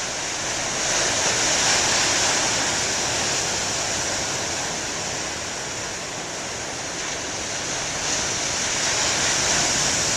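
Ocean surf: waves breaking and washing up the beach as a steady rushing noise, growing louder about a second in and again near the end as a new set of waves comes in.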